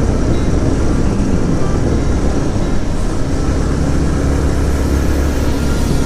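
Motorcycle running on the move, a steady low rumble with a rushing noise over it.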